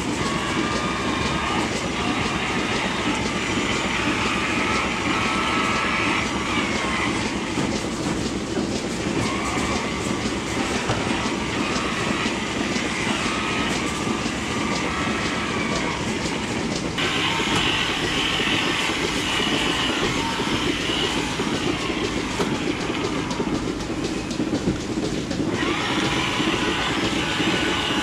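Milking parlour machinery running: a steady mechanical noise with many small clicks. Its tone changes abruptly about 6, 17 and 25 seconds in.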